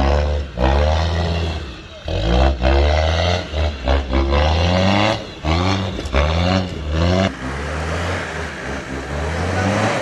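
Land Rover Discovery Td5's 2.5-litre five-cylinder turbodiesel revving hard in repeated bursts, each rising in pitch, as the truck climbs over rocks; the engine runs more steadily for the last few seconds.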